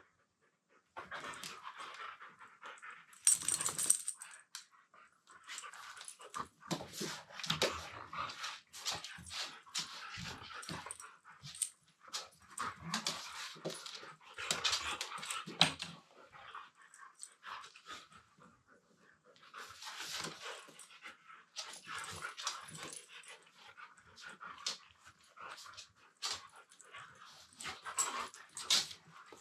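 Two Siberian huskies play-wrestling: low-pitched grumbling husky vocalizations, whimpers and panting mixed with scuffling, in irregular bursts with a few brief lulls.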